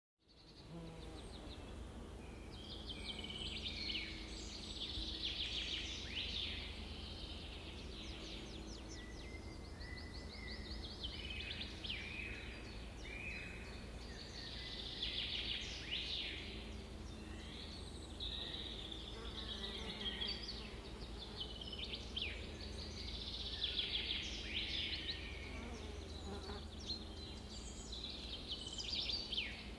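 Birds chirping and trilling in repeated bursts of song, with some fast buzzy trills and short gliding chirps, over a steady low hum.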